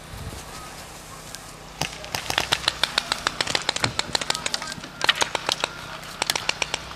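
Paintball markers firing in quick volleys of sharp pops, several shots a second, starting about two seconds in.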